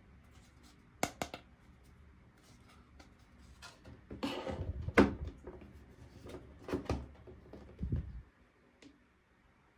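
Small plastic toy pieces and packaging handled by hand: sharp clicks about a second in, a rustle ending in a loud sharp click around five seconds, a few more clicks near seven seconds and a dull knock around eight.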